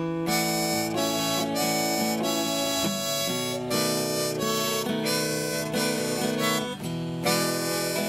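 Hohner Golden Melody harmonica in A, played cross harp for a blues in E: held, wailing notes that change pitch over a guitar accompaniment.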